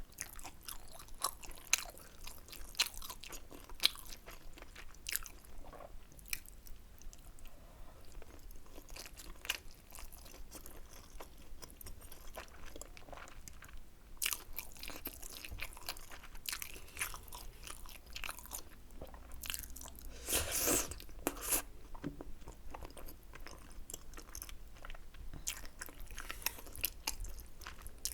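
Close-miked chewing and biting of spicy rice cakes (tteokbokki), with many small wet clicks and crunches. A denser, louder stretch of chewing comes about two-thirds of the way in.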